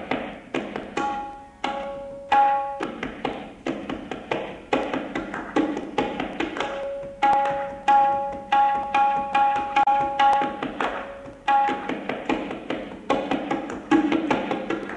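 Tabla solo in jhaptal, the ten-beat cycle: fast, dense runs of drum strokes over steady held notes.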